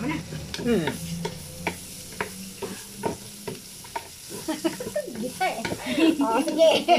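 Meat sizzling on a barbecue grill, with repeated clicks and scrapes of utensils.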